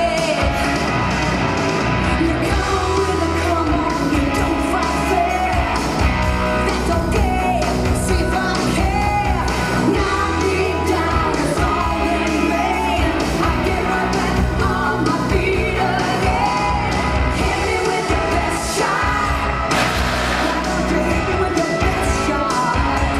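Loud rock music with singing and occasional yells over a steady bass and beat.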